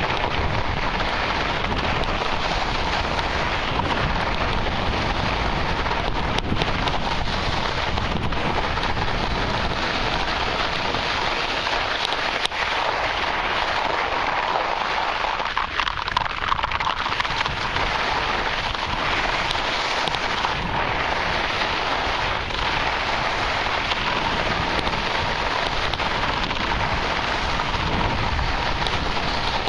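Snow hissing and scraping under a fast downhill run on a snowfield, with wind rushing over the microphone. The low rumble eases for a few seconds about halfway through, with a few sharp scuffs.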